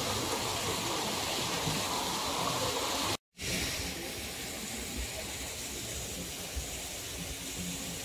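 Steady rush of running water. About three seconds in it cuts out for a split second, then carries on slightly quieter.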